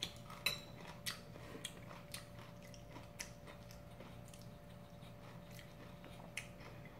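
Fork and spoon clicking against a ceramic pasta bowl while twirling spaghetti: a scattering of light clinks, the sharpest about half a second in, over a faint steady hum.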